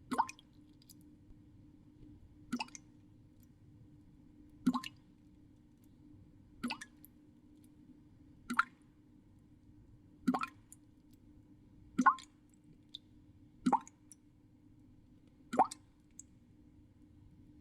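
Single water drops falling into water, a sharp plop about every two seconds, nine in all, over a faint steady low hum.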